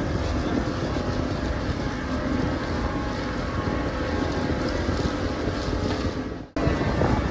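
Motorboat engine running steadily while the boat is under way, with wind rushing over the microphone. The sound cuts out abruptly about six and a half seconds in and comes straight back.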